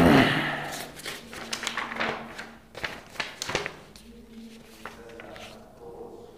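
Handling noise from sheets of paper and a pen: a run of light, sharp taps and rustles in the first few seconds, growing quieter towards the end.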